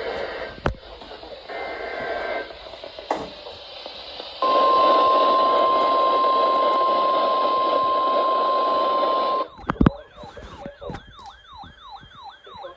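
NOAA Weather Radio alert over radio hiss: a brief screechy SAME data burst, then the 1050 Hz Warning Alarm Tone, one steady tone held for about five seconds that cuts off abruptly. After it comes a warbling electronic alarm, about three rising-and-falling sweeps a second.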